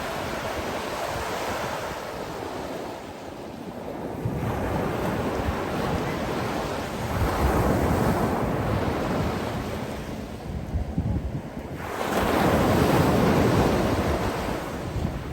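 Sea waves breaking and washing ashore in repeated surges, the loudest one about twelve seconds in, with wind noise on the microphone.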